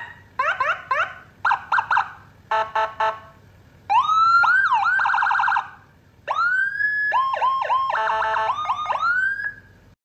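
Electronic vehicle siren run through a series of tones: groups of quick rising chirps, a fast pulsing pattern, a rising wail that breaks into a rapid yelp, then after a short gap more rising whoops and a quick alternating two-tone pattern.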